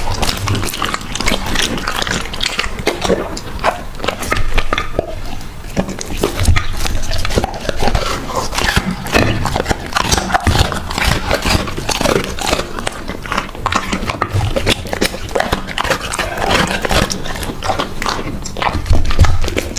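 A dog eating close to the microphone: dense, irregular chewing clicks and crunches, with a few low thumps.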